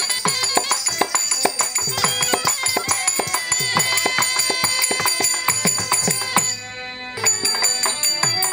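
Kattaikkuttu theatre music: rapid drum strokes with jingling ankle bells over steady held tones. It breaks off briefly near the end and then starts again.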